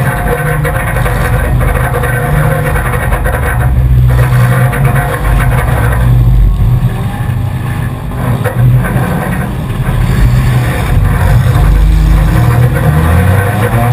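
A four-cylinder enduro race car's engine running loud, heard from inside its cabin, the revs rising and dropping with the throttle and climbing near the end.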